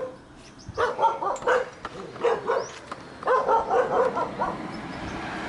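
Short, pitched cries or calls, repeated in several quick bunches.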